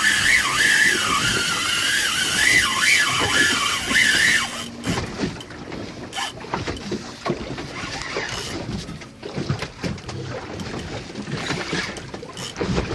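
Fishing reel's drag squealing as a big shark strips line off it: a loud, high whine that wavers up and down in pitch, then cuts off abruptly about four and a half seconds in. After that there are only wind noise and small knocks.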